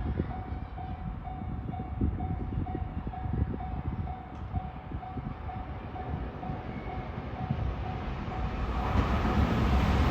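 Japanese railway level-crossing warning bell ringing steadily, about two rings a second, over a low rumble. Near the end a train approaches and its noise swells quickly.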